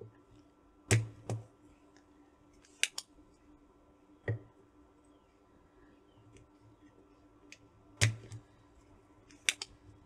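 Spring-loaded solder sucker (desoldering pump) firing: its plunger snaps back with a sharp click and thump about a second in, again about four seconds in and about eight seconds in, with lighter clicks between. It is sucking molten old solder out of a circuit board's through-holes.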